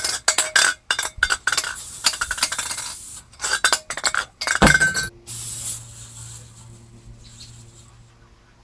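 Rapid metallic clinking and clanking with a ringing edge for about five seconds, then a short hiss that fades away over a faint low hum.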